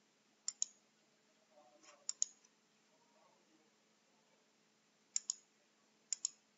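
Computer mouse button double-clicked four times, each a quick pair of sharp clicks, spread over a few seconds.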